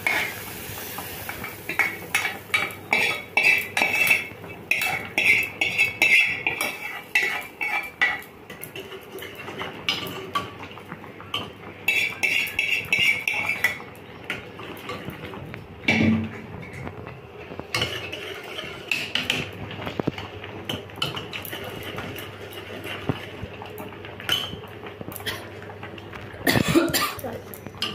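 A metal spoon scraping and clinking against a small frying pan and the inside of an aluminium pressure-cooker pot as fried tempering is scraped into dal and stirred, with a few louder knocks of metal on metal.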